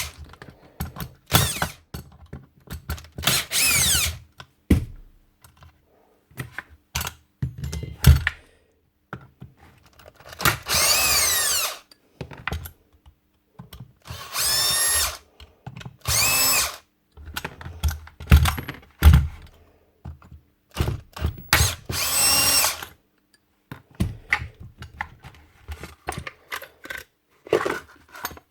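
Cordless drill-driver run in short bursts, each run rising in pitch as the motor spins up, with clicks and knocks of small metal parts being handled between the runs.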